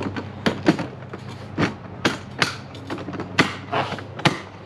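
Pelican V700 Vault hard plastic storage case being handled and packed: a run of irregular sharp knocks and clicks, about two a second.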